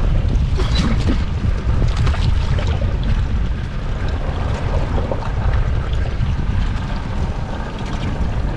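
Wind buffeting the microphone aboard a fishing boat trolling on open water, a steady low rumble with the wash of water against the hull.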